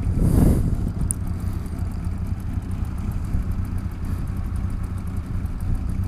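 Yamaha DT LC 50's small two-stroke single-cylinder engine idling steadily while the bike stands still. A brief louder rush of noise in the first second.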